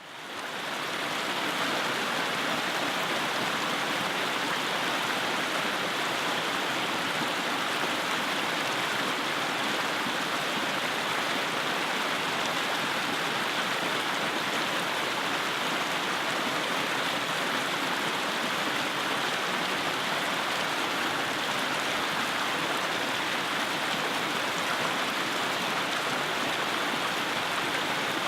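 Mountain creek water rushing between rocks: a steady, even wash that fades in over the first second or two.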